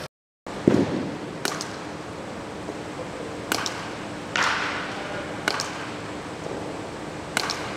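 Sharp knocks from baseball practice echoing around a large indoor training hall: about six irregular hits, each with a short ringing tail, over a faint steady hum. The first hit, about a second in, is the loudest.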